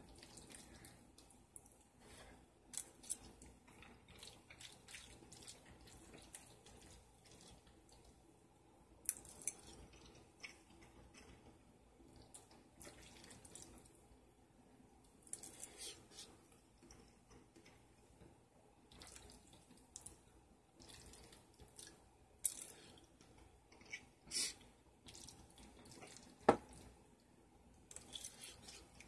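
Quiet eating sounds: a metal fork scraping and tapping in a bowl of macaroni and cheese, with wet chewing and scattered small clicks, and one sharper click near the end.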